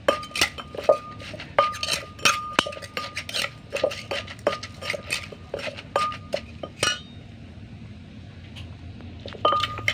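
Wooden pestle pounding dried mackerel paste in a clay mortar while a metal spoon knocks and scrapes against the bowl. The result is quick clinking strikes, each with a brief ringing ping, about three a second. The strikes stop about seven seconds in and start again near the end.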